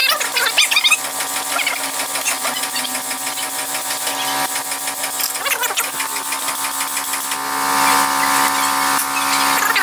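Steady machine hum, louder from about seven and a half seconds in, with light metallic clicks as a hand wrench tightens the brake caliper bracket bolts on a truck's front wheel.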